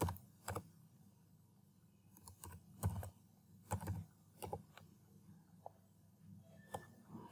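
Faint keystrokes on a computer keyboard while typing, in short irregular runs with brief pauses between them.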